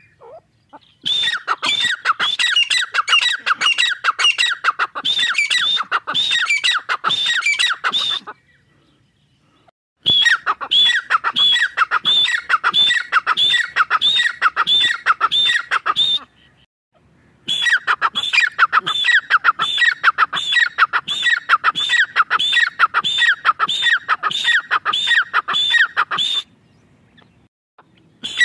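Grey francolin (teetar) calling: loud, shrill notes repeated fast, about four a second, in three long bouts broken by short pauses about eight seconds and sixteen seconds in.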